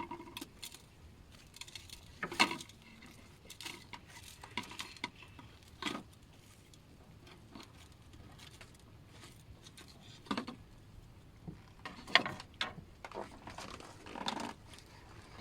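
Scattered light knocks, taps and clinks of dishes and food being handled, coming at irregular moments with a quieter stretch in the middle.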